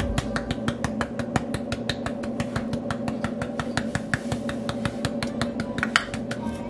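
A plastic spice shaker of cayenne pepper shaken hard over a pot, making a fast, even run of sharp clicks, about six or seven a second.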